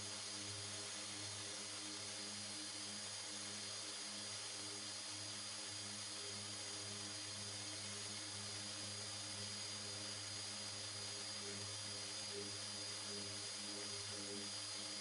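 Electric random orbital sander with a dust-extraction hose running steadily as it sands primer on a car bonnet, a constant motor hum and hiss.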